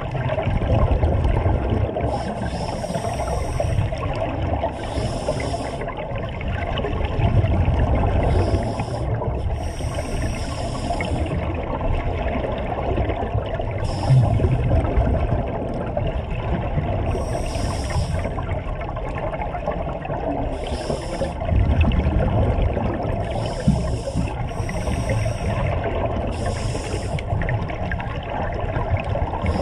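Scuba regulators underwater: short bursts of hissing breath and bubbling exhalation every couple of seconds, over a steady low rumble of the sea.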